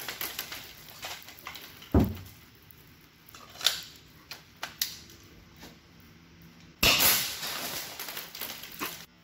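Clicks and knocks of a 40mm airsoft grenade shell being handled and loaded into a handheld launcher, with a heavier knock about two seconds in. About seven seconds in the launcher fires with a sudden loud burst that fades over a couple of seconds.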